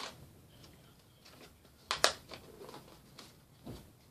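Paper crinkling and rustling as a folded paper play mat is handled and unfolded, with a couple of sharper crackles about two seconds in.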